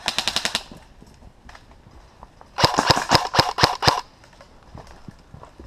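Airsoft rifle firing on full auto: a short burst right at the start, then a longer burst of about a second and a half beginning about two and a half seconds in, each a fast, even rattle of shots.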